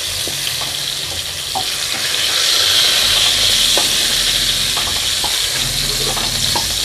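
Hot mustard oil sizzling in a kadai as fried pointed gourds are lifted out with a wooden spatula, with a few light clicks and scrapes. The sizzle swells a little around the middle.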